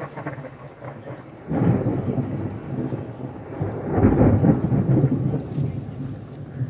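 Thunder rumbling over steady rain: the rumble breaks in suddenly about a second and a half in, swells again, louder, around four seconds, then slowly dies away.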